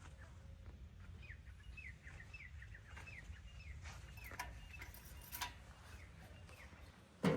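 A bird calling: a quick run of short chirps, each sliding downward, over a steady low rumble. A sudden loud thump comes just before the end.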